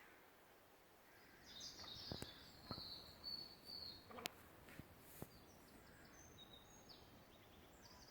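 Faint, high-pitched bird chirps in a quiet forest: a run of calls from about a second and a half in to about four seconds, then softer scattered calls near the end, with a few sharp ticks in between.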